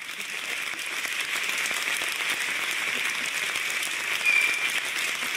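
Audience applauding steadily. A brief high tone sounds about four seconds in.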